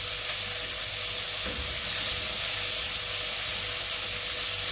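Thin-sliced tofu frying in hot oil with garlic in a pan, a steady even sizzle.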